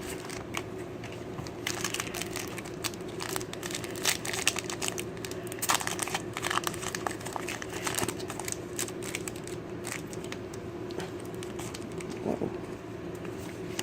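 Foil booster pack wrapper of a Pokémon trading card game pack being crinkled and torn open, a dense run of irregular sharp crackles, over a steady low hum.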